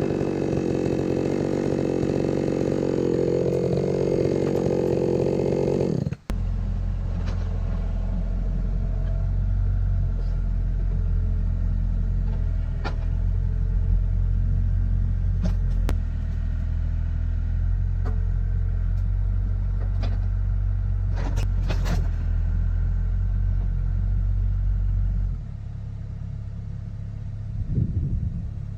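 A chainsaw running for about six seconds, cutting off suddenly. Then a steady, deep engine rumble with a few sharp knocks and cracks, dropping in level near the end.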